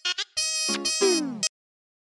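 Mobile phone ringtone playing: a short electronic melody of repeated notes that ends in a falling glide and cuts off suddenly about one and a half seconds in.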